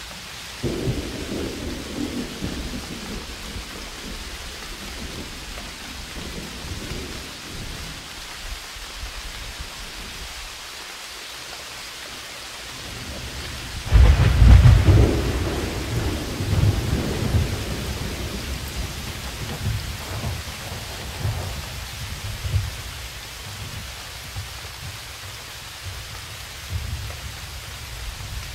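Rain with rolling thunder: a steady hiss of rain, a rumble of thunder about a second in and a louder thunderclap about 14 seconds in that rumbles away over several seconds.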